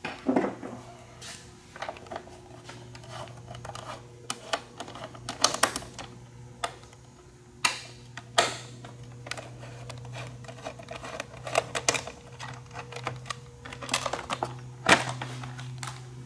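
Irregular clicks, taps and short clatters of tools and plastic motorcycle parts being handled as a sport bike's seats are taken off, over a steady low hum.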